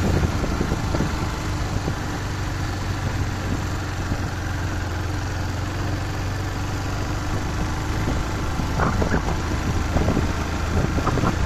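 A vehicle engine running steadily at low speed, heard from on board, with a few brief sharper sounds about nine seconds in and near the end.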